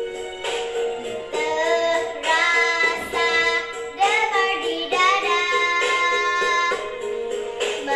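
A young girl singing solo over instrumental accompaniment.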